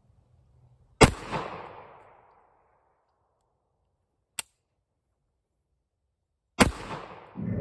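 Kimber Warrior SOC .45 ACP 1911 pistol firing two shots, about a second and five and a half seconds in, each with an echo that trails off. A single sharp click comes between the shots, and a lower sound swells up near the end.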